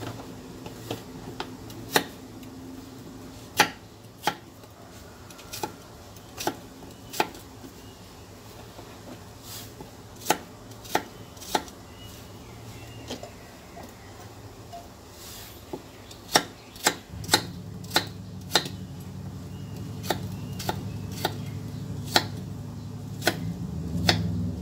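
Knife chopping peeled winter melon into chunks on a thick round wooden chopping block: sharp, irregular knocks of the blade striking the wood, coming quicker about two-thirds of the way through. A low steady hum comes in at about the same point.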